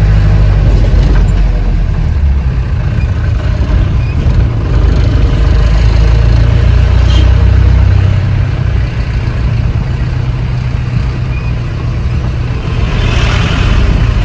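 A car driving, heard from inside the cabin: its engine and road noise make a steady low rumble. A brief rush of higher noise comes near the end.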